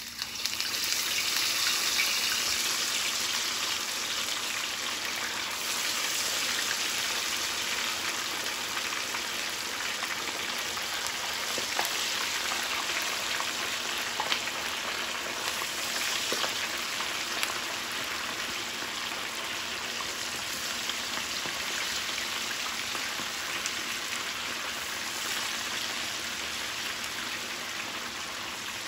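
Whole seasoned fish deep-frying in hot oil: a loud, steady sizzle that surges as the fish goes in just after the start, with scattered pops and crackles, easing slightly toward the end.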